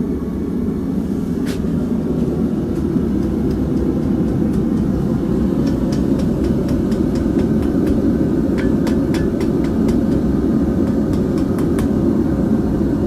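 Blacksmith's forge running with a steady low roar, with scattered light metallic clinks of tools and steel at the forge.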